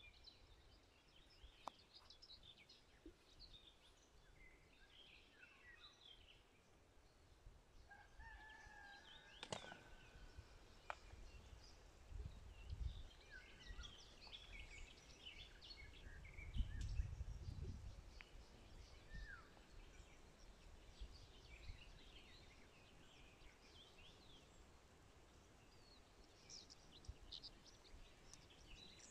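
Faint birdsong: many small birds chirping and trilling, with one longer drawn-out call about eight seconds in. Low rumbles swell briefly twice, around twelve and seventeen seconds in.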